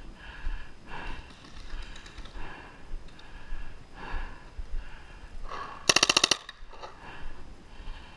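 Tippmann 98 Custom paintball marker with a Response Trigger firing one rapid full-auto burst of about half a second, roughly six seconds in. Before and after it, a steady rhythm of softer thuds comes about every half second or so.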